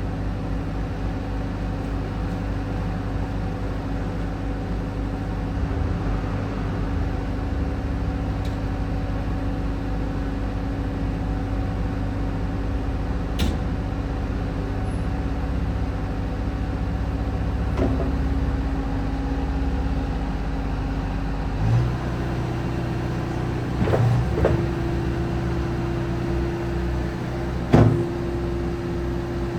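Bobcat T190 turbo track loader's diesel engine running steadily; about two-thirds of the way through its speed steps up. A few sharp clanks sound over it, the loudest near the end.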